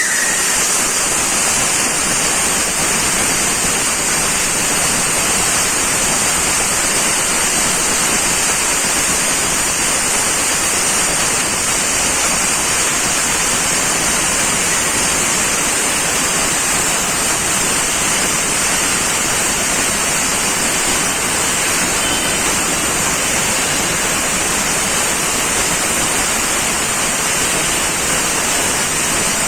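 SD-01 band resaw machine running and sawing, its workpiece carried through the blade on a conveyor belt: a steady, unbroken hiss that does not change in level.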